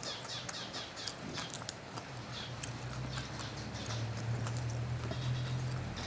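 Small birds chirping in short, quickly falling chirps, rapid in the first second and scattered after. Light clicks come through now and then, and a low steady hum builds from about two seconds in.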